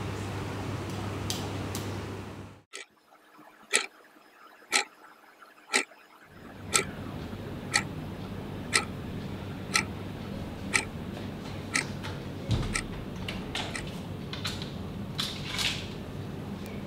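Clock ticking about once a second over a quiet room. Near the end come a thump, then irregular clicks and a rattle from a door lock and lever handle as the door is unlocked and opened. Before the ticking starts, a low steady hum cuts off suddenly.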